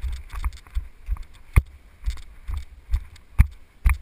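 Footsteps of the person carrying the camera, each jolting it with a dull thud, about two a second.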